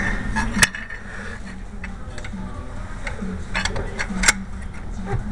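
Hand tools clicking and clinking against the main bearing cap and bolts of a Cummins 855 diesel block, with a scatter of sharp metal clicks, the loudest about half a second in and again just past four seconds. A steady low hum sits underneath.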